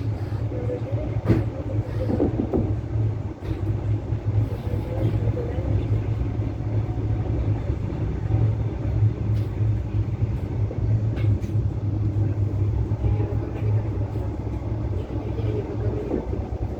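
Passenger train hauled by a DM62 diesel locomotive running, heard on board: a steady low drone with a few sharp clicks of the wheels over rail joints.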